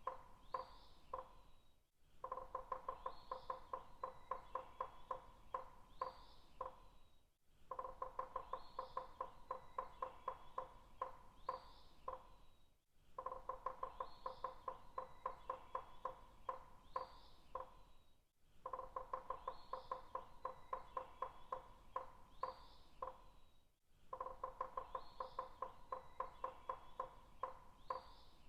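Woodpecker tapping on wood in quick runs of knocks with a ringing, hollow tone. Each run lasts about five seconds, with a brief gap between, and the same run repeats over and over. Faint high bird chirps come in over the tapping.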